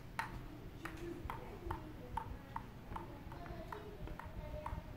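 A table tennis ball bouncing over and over on a paddle, a light hollow ping about twice a second in an even rhythm.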